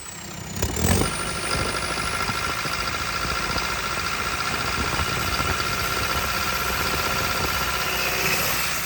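JCB Ecomax diesel engine on a JCB 220 excavator running rough with a misfire. It sags at first, surges loudly just under a second in, then settles into steady running with a constant whine over it.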